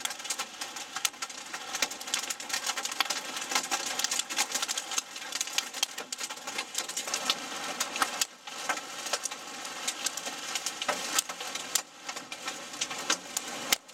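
Large hail, about an inch and a quarter across, pelting the roof and windshield of a vehicle with rain, heard from inside the cabin as a dense, irregular clatter of hard hits.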